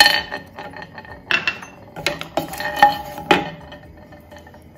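A whole nutmeg and dried mace tipped into a dry stainless steel pan and moved about with a wooden spoon. There is a sharp clatter at the start and four or so more knocks over the next three and a half seconds, each leaving the pan ringing.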